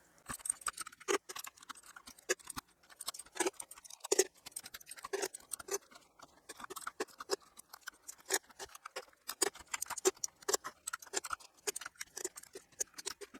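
Plastic keycaps being pulled off a mechanical keyboard by hand, sped up: a rapid, irregular run of sharp clicks and light clacks, several a second.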